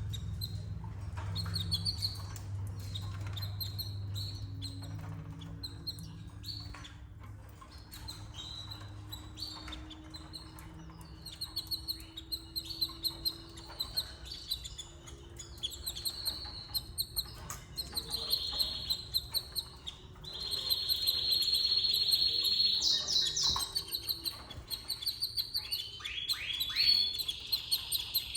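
Canaries chirping in short, repeated high calls, breaking into a fast steady trill a little past the middle and a run of quick downward-sweeping notes near the end.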